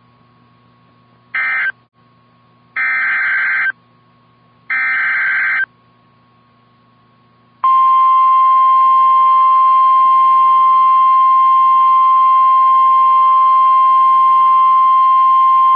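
Emergency alert signal from NOAA Weather Radio. It opens with three bursts of screechy digital SAME header data, the first one short and the other two about a second each. A pause follows, then the steady single-pitch 1050 Hz weather radio warning alarm tone sounds for about nine seconds and cuts off abruptly. Together these mark the start of a new warning broadcast.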